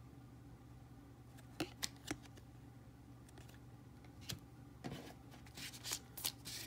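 Faint handling noise of trading cards: a few sharp clicks and taps as cards are shuffled and set down on a table, with light rustling thickening near the end.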